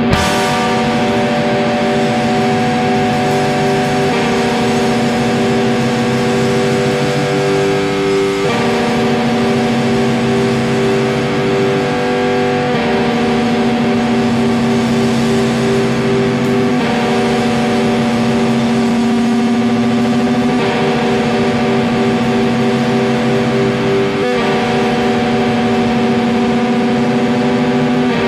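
Noise rock played loud on distorted electric guitar and drums: droning, repeated chords that shift to a new figure about every four seconds, with one note pulsed rapidly over the top.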